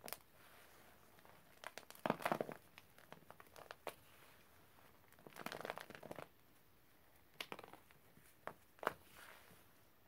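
Gloved hand crushing and crumbling chunks of dry white powder, in bursts about 2 seconds in and around 5 to 6 seconds in, with a few short sharp cracks later on.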